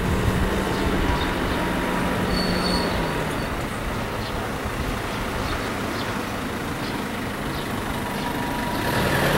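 Steady rumble of vehicles at a railway level crossing, growing louder near the end as one draws close.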